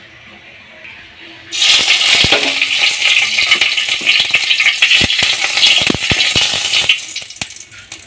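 Two small bay leaves hitting hot oil in a kadai: a sudden loud sizzle with sharp crackling spitting starts about a second and a half in, as the leaves fry for the tempering, and dies down over the last second or so.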